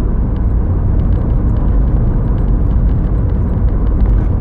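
Steady, loud low rumble with faint scattered ticks.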